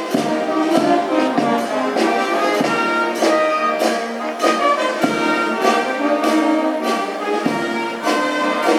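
Brass band music: trumpets and trombones playing a tune over a steady beat.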